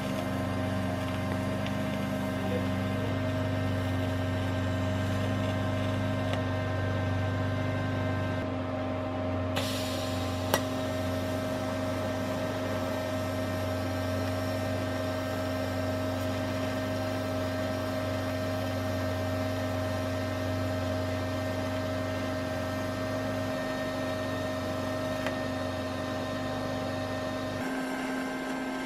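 TIG welder's arc running on an exhaust manifold: a steady electrical hum and buzz. The low hum cuts out near the end as the arc stops.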